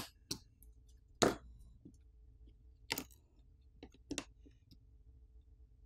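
Sharp clicks as a metal pry tool levers the thin metal motherboard cover off a Google Pixel 5a's frame, its clips snapping loose. There are about five clicks spread over several seconds, the loudest at the very start.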